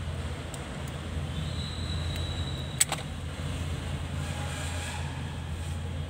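A steady low mechanical hum, with a single sharp click a little before halfway through.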